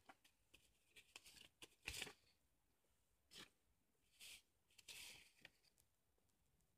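Faint rustling of paper cut-out drawings being handled and picked up, a few soft brief rustles, the loudest about two seconds in.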